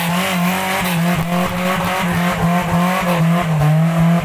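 A four-wheel-drive's engine held at high revs under load, its pitch wavering up and down.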